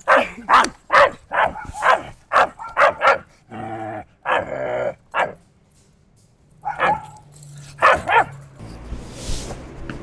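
Barking: a quick string of about eight short barks, roughly two a second, then a few drawn-out lower sounds, a brief pause, and two or three more barks.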